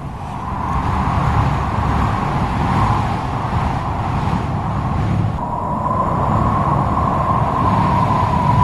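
Strong stormy wind blowing in gusts, a deep rumble under a whistling howl; the whistle drops away just after the start and comes back about five seconds in.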